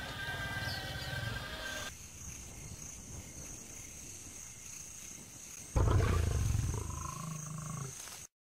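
Music ends about two seconds in, then a quiet stretch. About six seconds in a male African lion roars once, suddenly and loudly, and the roar fades over the next two seconds before the sound cuts off abruptly.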